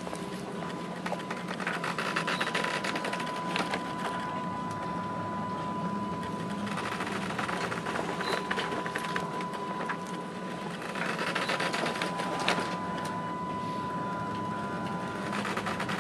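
Ship's bridge ambience in heavy seas: a steady machinery hum with a thin high-pitched tone held throughout, and continual light rattling and ticking from the bridge fittings. The rushing noise swells twice, around the middle and again about two-thirds through.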